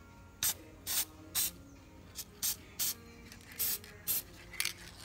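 Aerosol can of Permatex battery protector and sealer sprayed through its thin extension straw in about ten short bursts of hiss, coating the battery terminals against corrosion.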